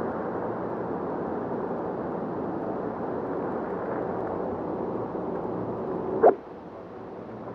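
A 4-iron striking a golf ball off a tee: one sharp click about six seconds in, over a steady background hiss, which drops away right after the strike.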